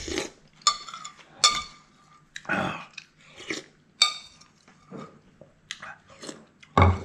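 A man eating spicy seafood noodle soup by the spoonful, chewing close to the microphone in short, irregular bursts. The spoon now and then clinks against the bowl.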